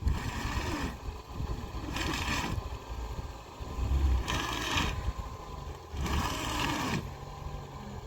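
Four rough scraping strokes, about two seconds apart, over a low steady rumble.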